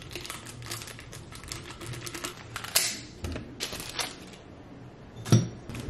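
Plastic flower wrapping crinkling and rustling as it is handled, with scattered sharp clicks and a louder knock near the end.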